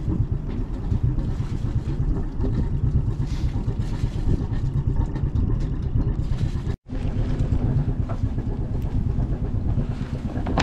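A sailboat's auxiliary engine idling at the dock before casting off: a steady low running rumble with a fast even pulse. It drops out for an instant about seven seconds in.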